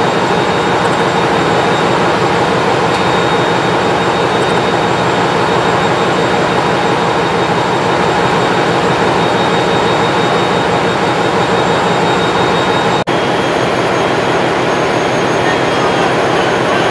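Loud, steady machinery drone of a ship's engine room, an even wash of noise with a faint high whine over it. It drops out for an instant about 13 seconds in, then carries on unchanged.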